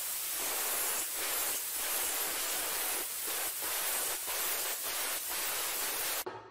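Angle grinder with a thin abrasive cutoff disc cutting through square steel tubing, a steady noise of the disc in the metal that stops abruptly near the end.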